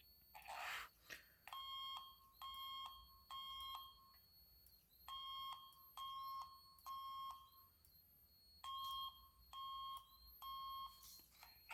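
Fire alarm sounding the temporal-3 evacuation pattern: three short beeps, a pause, and the set of three again, three times over.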